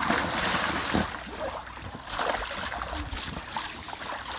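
Pool water splashing as a swimmer flips an inflatable ring over himself and plunges in. The loudest splash comes at the start, another surge about two seconds in, then water sloshing.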